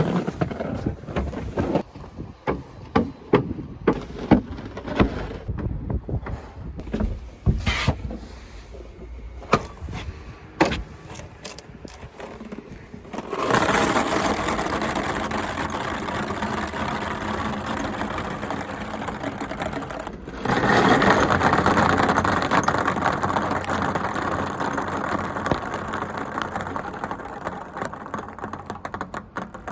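Ping pong balls tapping and bouncing down a plastic children's slide: separate sharp clicks at first, then from about halfway a dense continuous rattle as many balls roll down together, getting louder again about two-thirds of the way in.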